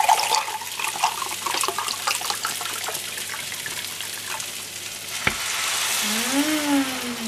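Rice frying with a light crackle in a hot nonstick frying pan. About five seconds in there is a sharp click, then chicken broth is poured from a glass jar into the pan, and the hiss grows louder near the end.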